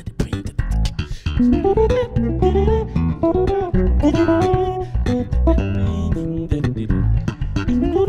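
Two bass guitars playing an instrumental groove: low plucked notes with sharp attacks, joined about a second and a half in by a sliding melody played higher up the neck.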